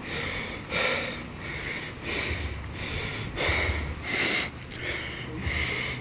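A person breathing hard and fast close to the microphone, quick rasping breaths about every three-quarters of a second, with one louder breath near the four-second mark.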